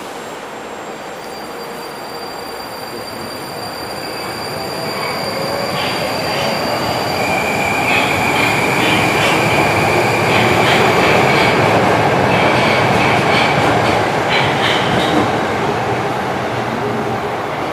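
Metrowagonmash 81-775/776/777 "Moscow-2020" metro train running past the platform. It grows louder with a rising motor whine, then a high wheel squeal and a scatter of wheel clicks take over in the middle, before it fades near the end.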